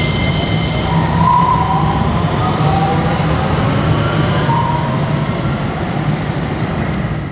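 DART Kinkisharyo light rail train running past the platform: a steady rumble of wheels on rail with whining tones that drift up and down in pitch.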